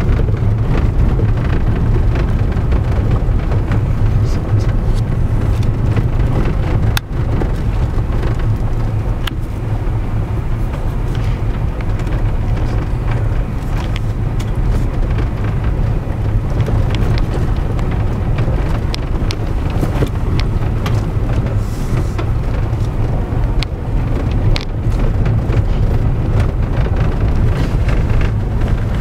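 Vehicle driving slowly on a rough dirt road, heard from inside the cab: a steady low engine-and-tyre drone with scattered sharp clicks and knocks as it rides over the rocky track.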